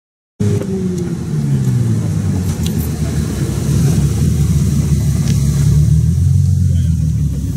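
Bentley Continental GTC Supersports' twin-turbo W12 engine running at low revs as the car rolls slowly up. The sound cuts in suddenly about half a second in, its note falls over the first second, then settles into a steady low rumble.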